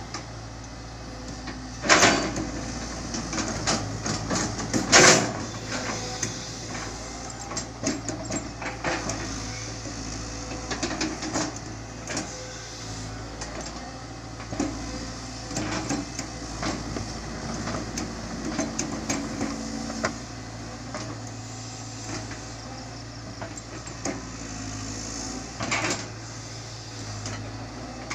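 Caterpillar 320 GC excavator's diesel engine running steadily under many sharp knocks and clanks, with two loud bangs about two and five seconds in and another near the end.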